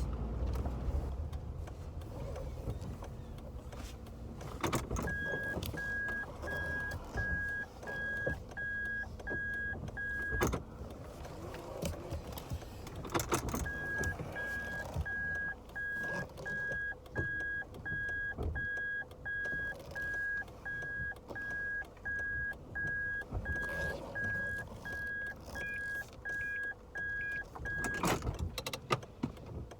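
A car's electronic warning beeper sounding a single high tone about one and a half times a second, in two runs of several seconds each, over the low rumble of the car.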